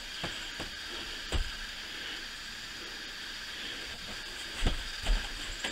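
Steady hiss, with a few light knocks as the hot coffee pot is handled.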